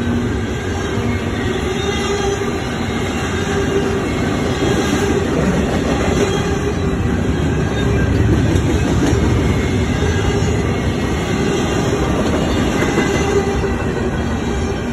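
Double-stack intermodal freight cars rolling steadily past, steel wheels rumbling on the rails, with steady squealing tones from the wheels over the rumble.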